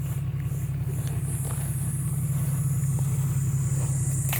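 Car engine running steadily at a low, even rumble.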